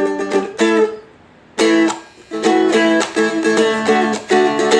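Seagull Merlin strummed in short rhythmic runs of chords, with a brief break about a second in before the strumming picks up again.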